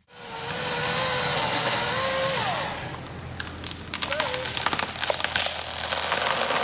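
Greenworks 40V cordless electric chainsaw running with a wavering whine that winds down about two and a half seconds in. Then a quick blip of the motor and a long run of cracking and snapping as trees come down through their branches.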